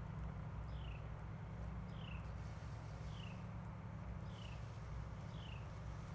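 A bird repeating a short, high call that falls in pitch, about once a second, over a low steady rumble.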